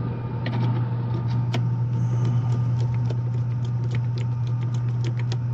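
Scattered light clicks and scrapes of a screwdriver loosening the terminal screws on an HVAC contactor, over a steady low hum in the background.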